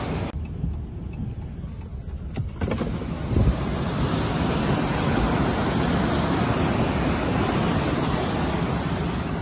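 Floodwater rushing past in a torrent, a steady loud rush that is muffled for the first two seconds and opens up about two and a half seconds in, with a low thump a second later.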